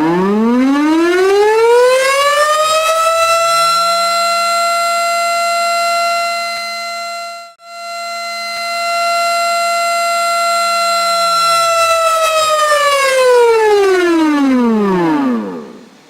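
Tornado siren winding up in pitch over about four seconds, holding a steady wail, then winding down and stopping. About halfway through, the sound cuts out for a moment.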